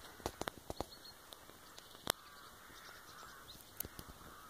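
Crows cawing faintly, several rough calls, with a few sharp clicks scattered through.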